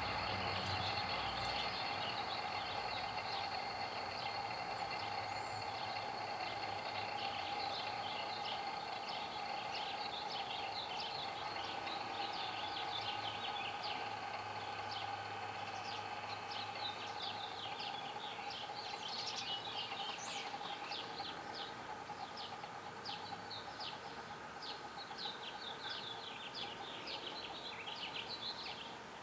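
OBX GT28R ball-bearing turbo's compressor wheel coasting down, a faint steady whir that slowly fades. Birds chirp over it, thickly from about seven seconds in.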